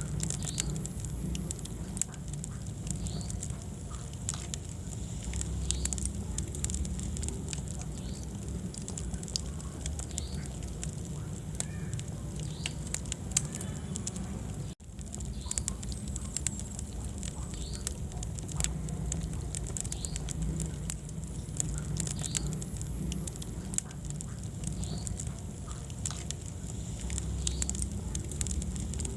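Wood fire burning in a fireplace: frequent small crackles and pops over a low, steady rumble of flame. The sound cuts out for an instant about halfway through.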